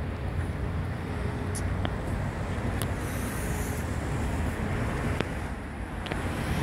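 Low, steady rumble of car engines and street traffic, with a few faint clicks.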